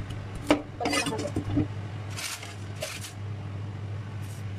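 Kitchen knife and cleaver clinking sharply against a stainless-steel sink and counter several times, then two short scraping strokes of a knife peeling a white radish.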